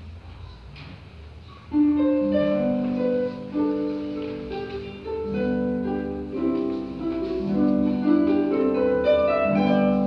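Pedal harp starting to play about two seconds in, its plucked notes ringing on and overlapping in a flowing classical piece.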